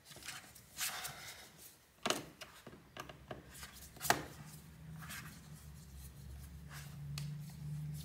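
Fingers pressing a Dell G15 5515 laptop's plastic bottom cover down along its edge to seat it: scattered clicks and knocks, the loudest about two and four seconds in, with fingers rubbing on the plastic between them.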